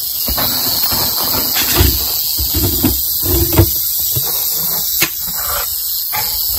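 Prairie rattlesnake rattling its tail in a steady high buzz while coiled in a defensive posture, the sign of an agitated, 'not happy' snake. A few low thumps and a sharp click about five seconds in sound over it.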